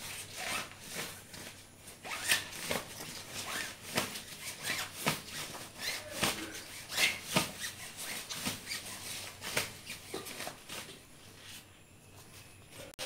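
Nylon fabric and mesh cover of a baby bed rail guard rustling and crinkling in irregular strokes as it is handled, shaken out and smoothed, going quieter in the last second or so.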